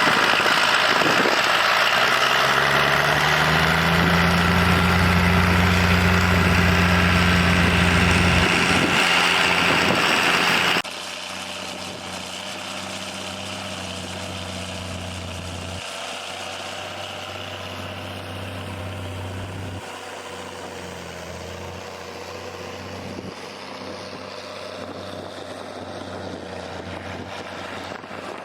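Vintage tractor engine working in the field, its note rising about two seconds in and then holding steady. About eleven seconds in, the sound cuts abruptly to a quieter, steady engine hum.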